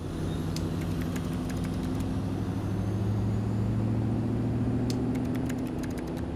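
Semi truck's diesel engine idling steadily, with a few faint clicks about five seconds in.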